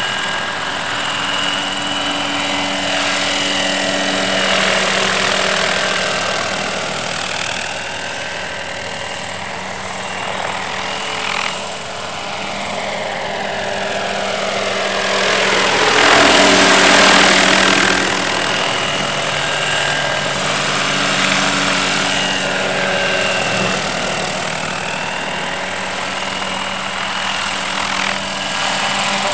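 Radio-controlled scale UH-1 Huey helicopter flying low, its rotor and drive whine running steadily. A little over halfway through it passes close, rising then falling in pitch and at its loudest.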